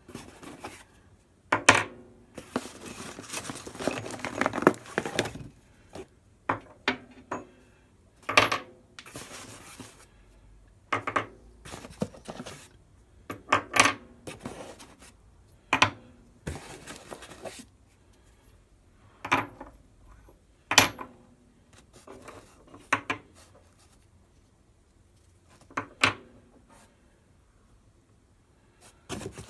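Small metal objects clinking and being set down one at a time, some ringing briefly, with stretches of rustling handling noise in between.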